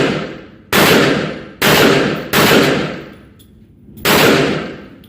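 Kel-Tec PMR-30 .22 Magnum pistol fired four times at an uneven pace, each very loud shot followed by a fading echo.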